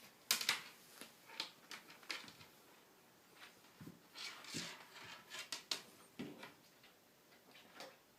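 A kitten at play: irregular light taps, scuffles and rustles, a few louder knocks among them, the loudest about half a second in.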